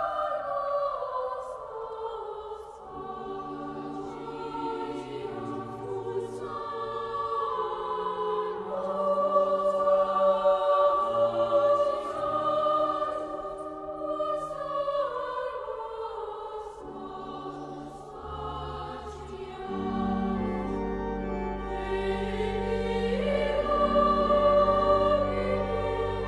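Slideshow background music: choral singing in long held notes that move slowly from chord to chord, with a deeper bass part joining near the end.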